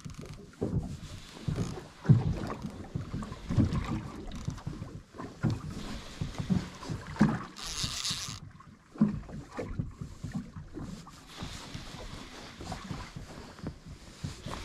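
Small boat on the water: irregular knocks and water sounds against the hull, with a short burst of hiss about eight seconds in.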